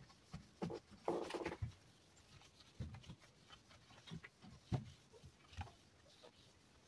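Faint handling noises at a workbench: scattered small clicks and knocks of parts and tools being moved, with a brief louder scrape or rustle about a second in.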